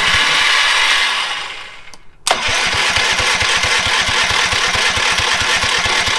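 Power Stroke pressure washer's small gas engine being turned over on its electric start, without the choke. A loud burst fades out over about two seconds; then a sharp start and a steady rhythmic engine sound with about eight pulses a second.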